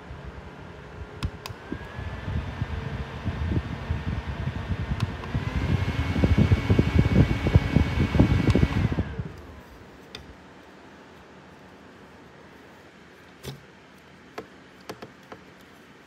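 Small USB desk fan running, its motor whine stepping up in pitch and loudness twice as it is switched up through its speeds. At the top speed its airflow buffets the microphone with a low rumble. A little past the middle it is switched off and winds down with a falling whine, and a few light clicks follow.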